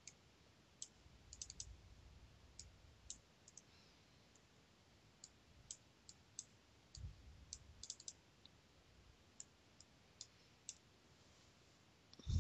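Faint computer mouse clicks, irregular and often in quick pairs, scattered over near silence, with a soft low bump about seven seconds in.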